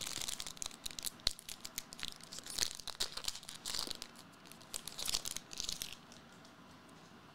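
Foil trading-card pack wrapper crinkling and tearing as it is opened and handled by hand, a dense run of crackles and sharp clicks that stops about six seconds in.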